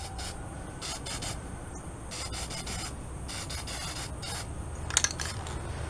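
Aerosol spray paint can hissing in a series of short bursts, about five, as black paint is sprayed onto a canvas; the last burst, about five seconds in, is the loudest.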